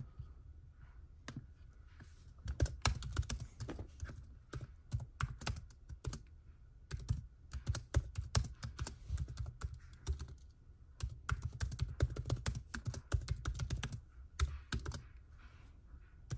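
Typing on a MacBook Air laptop keyboard: quick runs of key clicks broken by short pauses.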